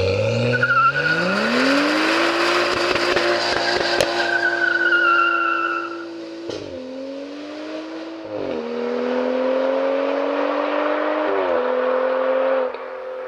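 BMW M235i's turbocharged inline-six, through an Armytrix exhaust, revving up hard as the rear tyres spin and squeal in a burnout. The car then pulls away through three upshifts, each a brief dip in engine pitch followed by a rise, and fades near the end as it drives off.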